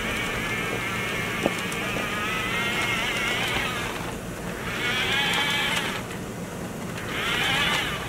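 Electric drive motor and gearbox of a remote-control toy dump truck whining as it drives in spurts, stopping and starting again twice, with a single sharp click about a second and a half in.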